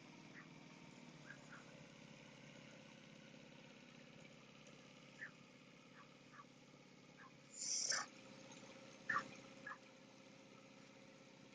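Faint steady hum of a small Honda four-stroke outboard running slowly on a steel canal cruiser. Short high sounds come over it now and then, the loudest about eight seconds in and again about a second later.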